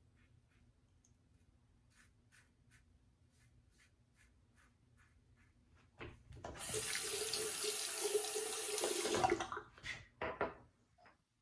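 Faint short scrapes of a brass safety razor cutting stubble under the nose. About six seconds in, a bathroom tap runs hard into the sink for roughly three seconds to rinse the razor, then shuts off, followed by a couple of short sharp sounds.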